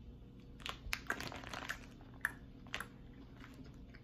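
Soft Starburst Airs gummy candy being chewed: faint, scattered wet clicks and smacks of the mouth, spread over the first three seconds.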